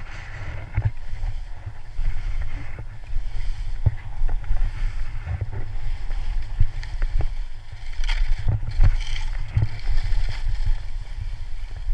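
Skis scraping and carving down through chunky snow, with a hiss of spraying snow and sharp edge scrapes on the turns. Wind buffets the action camera's microphone throughout, making a steady low rumble.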